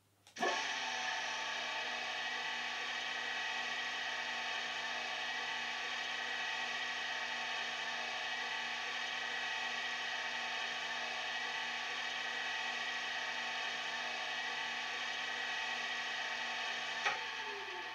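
Class 37 diesel locomotive sound (Legomanbiffo sound file) from a model's DCC sound decoder, played through an EM1 speaker in the fuel tanks: the engine idling steadily with a high whistle over the engine note. Near the end a click, then a falling whine as the sound dies away.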